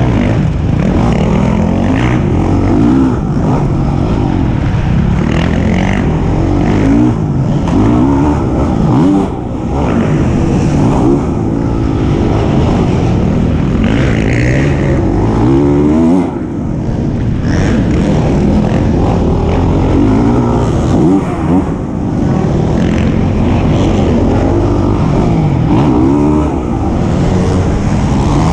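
Honda CRF450R's single-cylinder four-stroke engine being ridden hard, close to a bike-mounted camera: the revs climb and drop again every couple of seconds with throttle and gear changes.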